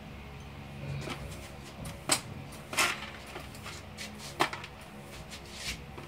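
Broom bristles sweeping across a bare concrete floor: a handful of short, scratchy swishes, over a faint steady hum.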